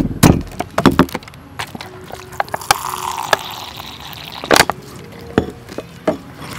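Stone mortar and pestle: a few pestle strikes, then fish sauce and lime juice poured into the mortar for about a second and a half. After the pour come a loud knock and a few more scattered pestle knocks.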